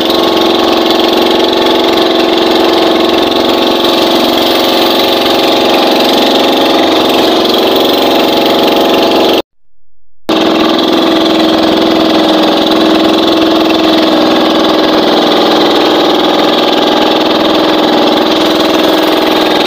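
Outrigger fishing boat's engine running steadily and loudly under way, a constant even drone. It cuts out for under a second near the middle, then carries on unchanged.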